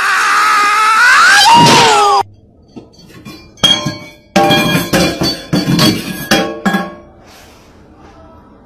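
A loud, long wavering cry that falls in pitch and stops abruptly about two seconds in. Then a string of sharp metallic clinks and clatters as a cat knocks metal objects around a stainless steel sink and countertop.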